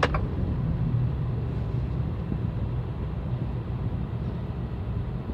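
Jeep Renegade engine and road noise heard from inside the cabin: a steady low hum as the car comes to a stop. The engine keeps running instead of cutting out, because the start-stop system fails to engage.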